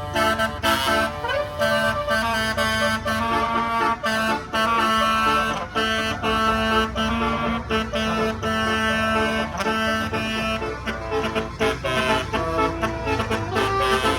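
Multi-note basuri musical air horn on a tour bus playing a melody in held, reedy notes, over the bus engine's steady low running.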